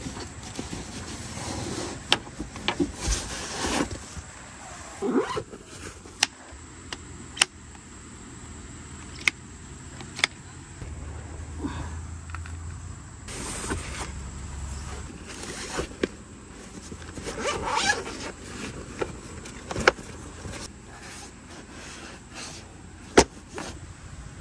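Camping gear being handled: a string of sharp clicks and knocks with several short rustling swishes, over a steady faint high whine.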